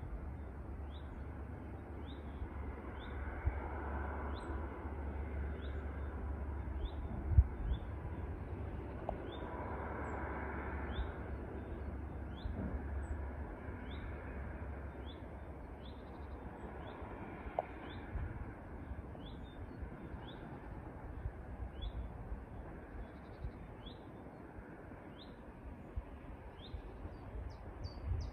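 A songbird repeating a short, high, rising chirp about once a second, over a low steady rumble. One sharp thump about seven seconds in.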